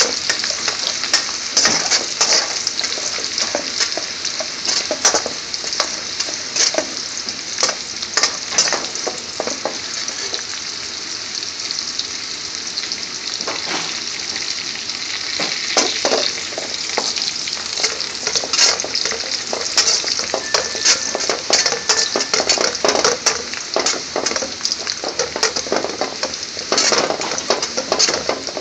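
Chopped garlic sizzling in hot vegetable oil in a wok, with a steady hiss. A metal spoon scrapes and knocks against the pan again and again as the garlic is stirred, frying until slightly brown.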